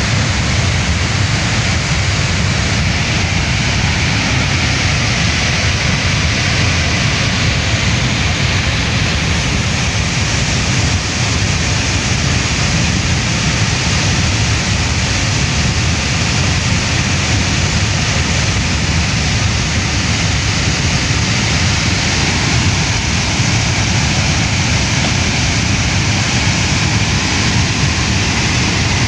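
Muddy river in flash flood rushing past in full spate: a loud, steady rush of churning water, a deep rumble under a constant hiss.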